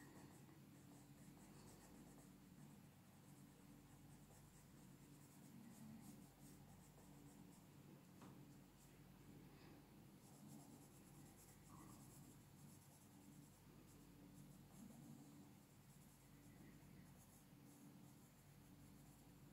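Faint scratching of a coloured pencil shading on a colouring-book page in short, repeated strokes, over a low steady hum.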